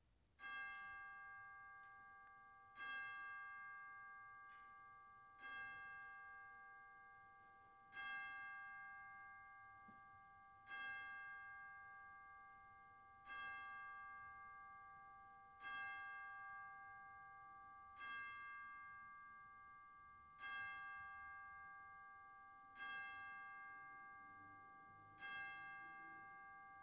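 A bell struck slowly and evenly, eleven strokes about two and a half seconds apart, each one ringing on and fading into the next.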